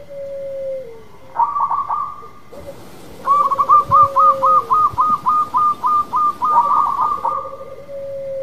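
Zebra dove (perkutut) cooing: long rolling low coos near the start, about a third of the way in and near the end, and in between a quick, evenly spaced run of about a dozen higher coo notes.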